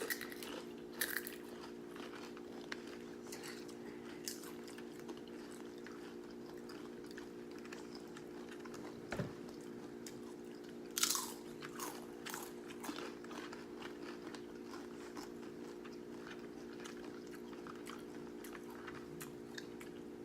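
Crunching and chewing of Doritos tortilla chips loaded with nacho toppings, heard close up as irregular crisp crunches, the loudest near the start and about eleven seconds in. A steady low hum runs underneath.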